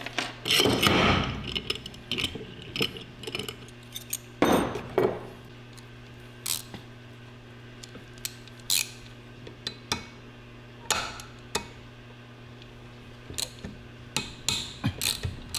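Metal engine parts and hand tools clinking and knocking as an engine is taken apart on the bench: a cluster of clatter at the start and again around four and a half seconds, then scattered single clicks, over a steady low hum.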